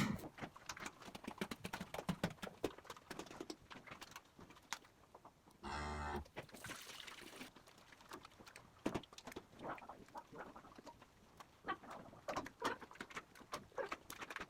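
Dairy cattle moving on concrete, their hooves knocking and clopping irregularly, with a short call from a cow just before six seconds in, followed by a brief hiss.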